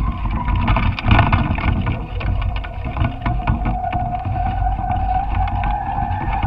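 Wind buffeting the microphone of a camera hanging from a kite rig: a steady low rumble with irregular rattling ticks, over a thin steady whine that settles slightly lower in pitch about three seconds in.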